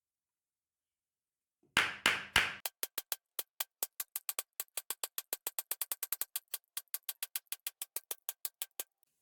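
Percussive music: three loud hits, then a fast, even run of sharp clicks, about five a second, stopping near the end.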